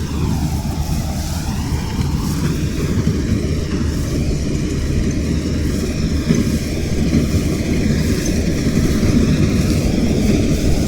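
Engine of a mini combine harvester running steadily under load, its note dipping briefly about a second in and then recovering.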